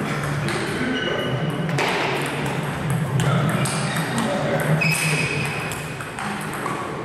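Table tennis ball clicking off the bats and the table during a rally, in quick irregular knocks.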